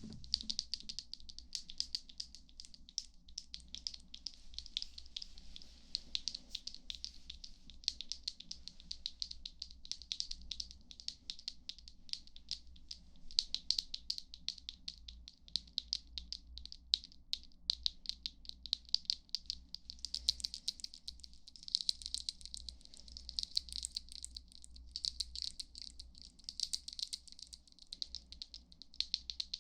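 ASMR tingle sounds: a dense, fast, irregular crackle of small clicks, high and crisp, running on without a break.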